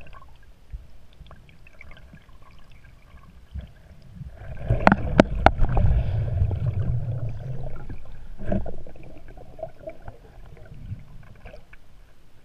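Underwater sound picked up through a camera's waterproof housing: faint crackling and ticking. About five seconds in comes a loud low rumble with a few sharp clicks, lasting a couple of seconds, and a shorter burst follows a few seconds later.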